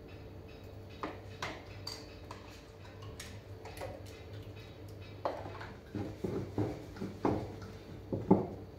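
Light clicks and knocks of kitchen utensils handled on a countertop: a plastic tub, a spice mill and a wooden rolling pin being picked up and set down. The knocks come thicker in the second half, and the sharpest is near the end, as the rolling pin goes onto the floured counter. A steady low hum runs underneath.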